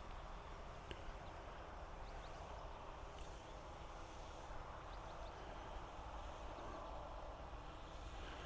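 Faint outdoor rural ambience: a steady low background hiss with a few faint, short bird chirps scattered through it.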